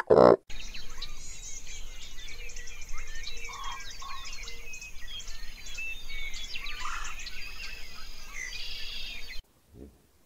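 Many birds chirping and calling in a dense chorus of short chirps and trills over a steady background hiss; it cuts off suddenly near the end. A brief loud sound opens it.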